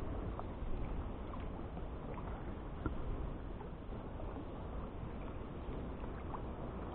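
Kayak paddle strokes through river water: the blades dip and pull with small splashes over a steady wash of water against the sit-on-top kayak's hull.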